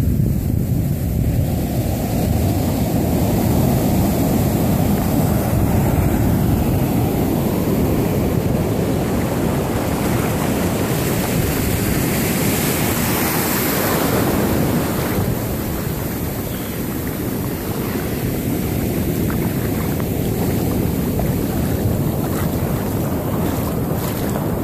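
Ocean surf breaking and foamy wash running over the sand in a steady rush, with wind rumbling on the microphone.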